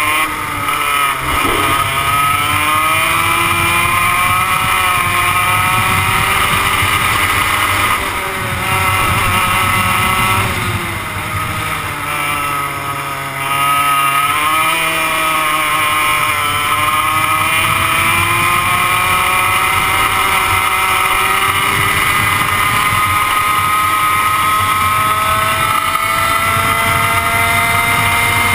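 100cc two-stroke kart engine heard from on board at racing speed, revving high and dropping in pitch several times as the driver lifts for corners, then climbing steadily through the last dozen seconds.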